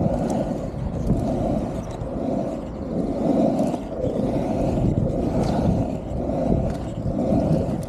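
Skateboard wheels rolling on asphalt, a steady roar that swells and fades about once a second as the rider pumps through the rollers and berms of a pumptrack.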